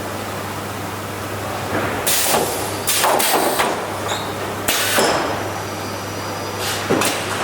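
Hollinger four-head window-frame welding machine working: a steady hum with a series of sharp clunks and short hissing bursts, about two and three seconds in, near the middle, and again near the end.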